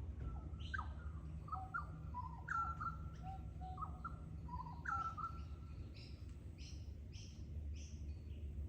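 Wild birds calling in Australian bush: clear whistled notes that drop and level off, then a run of short high chips about twice a second in the second half. A steady low rumble sits underneath.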